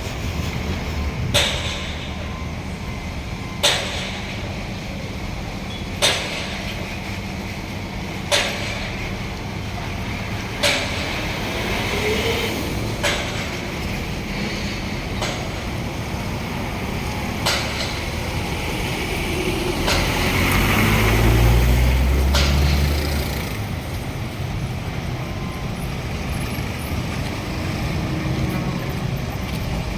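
Road traffic running steadily, with a heavy vehicle passing loudly about two-thirds of the way through. A sharp knock repeats about every two and a half seconds.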